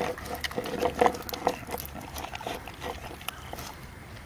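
A pit bull–type dog lapping and snuffling at the bottom of a plastic bowl after its meal, with irregular wet clicks and slurps.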